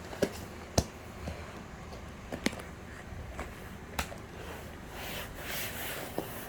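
A few sharp taps and clicks at irregular intervals, with a soft rustling near the end.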